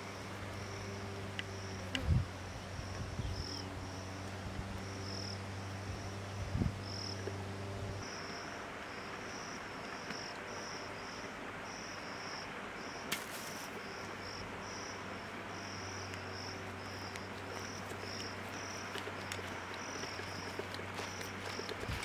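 An insect chirping in a steady run of short, high-pitched pulses, about two a second, over a soft outdoor background hiss.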